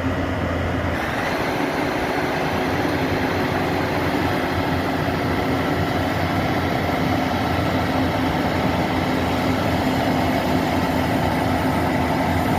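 Heavy farm-machine engine running steadily during the recovery of a combine harvester stuck in mud. The sound shifts about a second in, losing its low hum and turning noisier.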